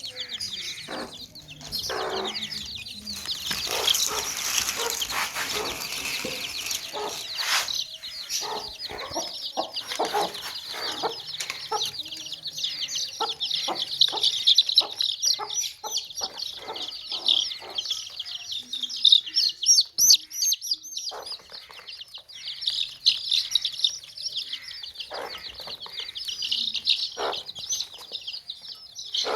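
A brood of baby chicks peeping continuously, many high-pitched chirps overlapping, with short lower clucks among them.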